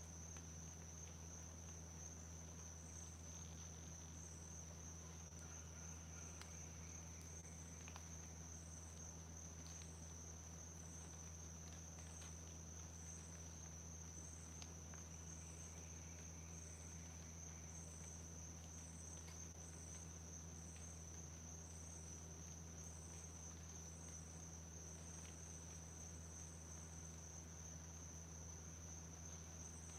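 Faint insects calling outdoors: a steady high-pitched drone, with a shorter chirp above it repeating about once a second. A steady low hum runs underneath.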